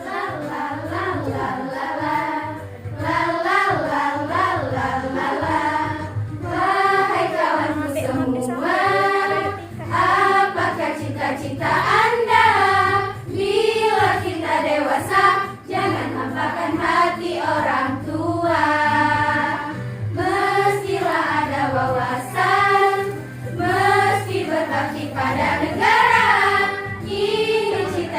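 A group of voices singing a song together in unison, one melody line carried through several phrases.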